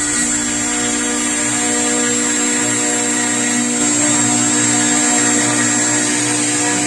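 40×60 CNC milling machine running steadily, its spindle whining high as the cutter mills wood.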